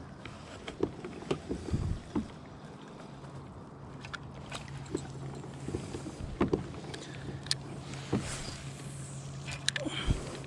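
Kayak on the water: scattered knocks and clicks of gear against the hull, over a steady low hum.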